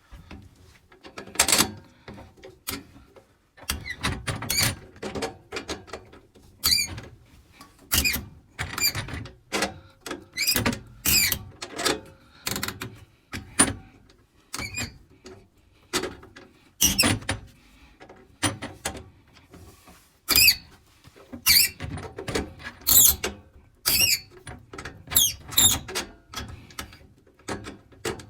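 Monument olive puller's bar being turned by hand, its threads squeaking and creaking in short strokes about once a second as it draws a compression olive off copper pipe.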